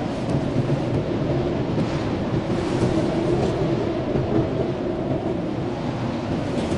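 Blizzard wind blowing steadily in a deep, rumbling howl that swells and eases slightly, with a few brief faint hissing gusts.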